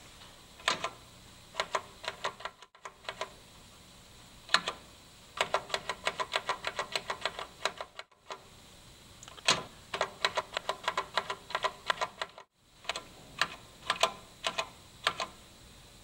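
Pushbuttons on a Viking VFR-400 release control panel clicking as they are pressed, some singly and some in fast runs of about five clicks a second, as the Set button is pressed repeatedly to scroll through letters for the banner message.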